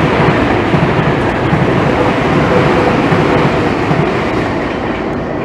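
Tobu line train passing close by over the level crossing: a loud, steady rush of wheels on rails that eases off slightly near the end.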